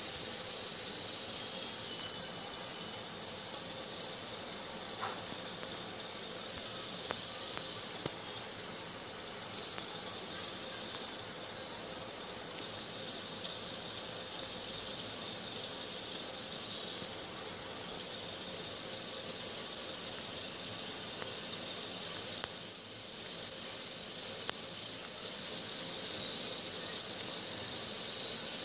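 Steady background hiss with a faint high tone running through it.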